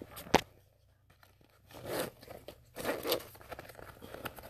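Fabric tackle hip pack being handled and its pockets opened: a sharp click just after the start, then uneven rustling and crinkling of the material from about two seconds in.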